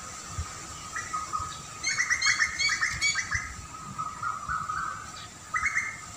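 Songbird singing a fast run of chirps about two seconds in, with a shorter burst near the end. A steady high-pitched tone continues underneath.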